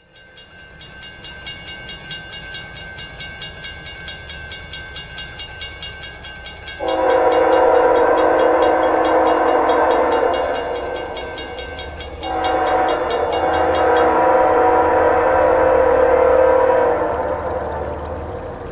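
Railroad grade-crossing warning bell dinging rapidly and evenly while the crossing gates come down, then an approaching freight locomotive's air horn blowing two long blasts for the crossing, from about seven seconds in, the second fading near the end. The bell stops about fourteen seconds in.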